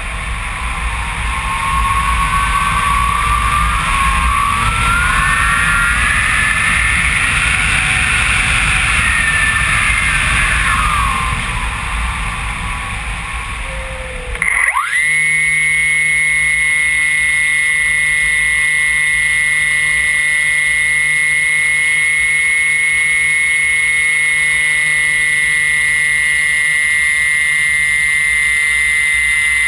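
Air rushing past a HobbyKing Phoenix 2 m glider in an unpowered glide, with whistling tones that rise and fall. About halfway through, its electric motor starts abruptly and then runs at a steady high whine as the propeller spins.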